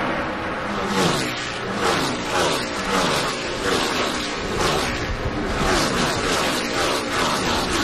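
NASCAR stock cars' V8 engines passing the trackside camera one after another in a pack, each engine note dropping in pitch as the car goes by.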